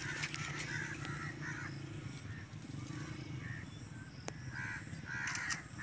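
Crows cawing repeatedly in short calls over a steady low hum, with one sharp click about four seconds in.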